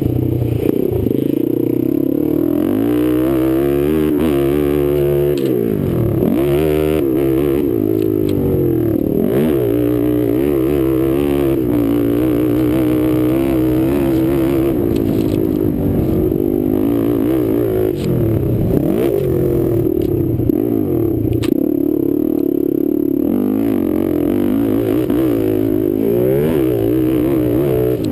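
Sport quad (ATV) engine revving hard, its pitch repeatedly climbing and dropping with throttle and gear changes, heard close up from the rider's helmet camera.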